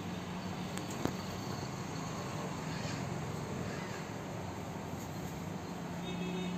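Steady background room tone: an even hiss with a low hum beneath it, and a single short click about a second in.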